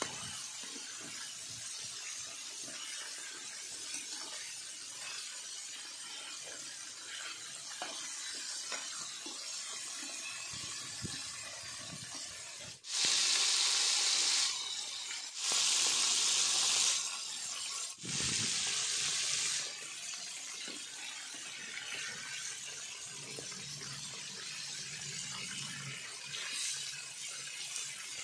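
Battered chicken legs deep-frying in hot oil in a wok, a steady sizzle. About halfway through come three much louder bursts of bright sizzling, each about a second and a half long, starting and stopping abruptly.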